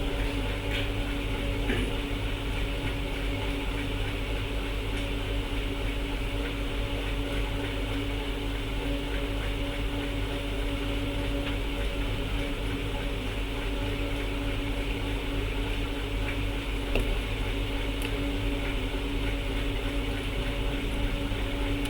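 Steady mechanical hum of a fan or running electrical equipment, with a constant low tone and a few faint ticks.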